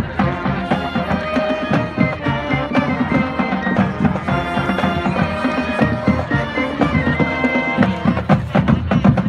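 Marching band playing as it marches past, sustained wind-instrument tones over a steady drum beat.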